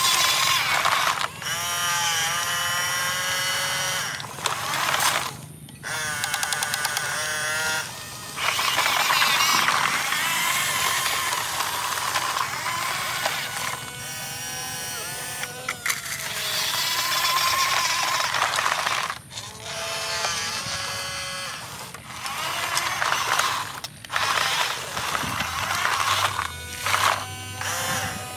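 Small electric motors and gearboxes of radio-controlled construction machines, mainly a tracked excavator, whining and buzzing. The whine starts, stops and glides up and down in pitch every few seconds as the arm and bucket move.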